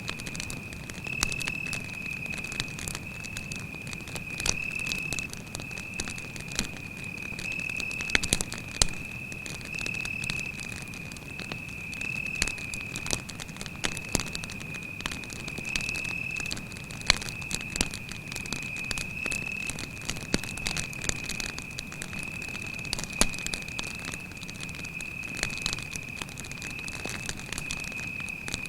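Wood campfire crackling, with sharp pops at irregular intervals, over a cricket's steady high-pitched trill.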